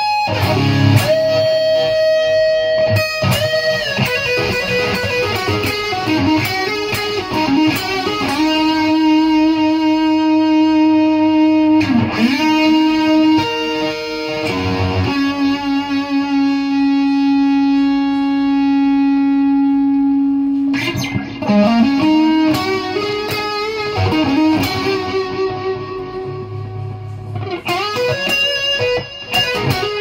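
Seven-string electric guitar with Lundgren M7 pickups played through a high-gain Bogner Uberschall Rev. Blue amplifier and heard as the amp sounds in the room: a lead passage of quick runs, pitch bends and long sustained notes, one held for about six seconds in the middle.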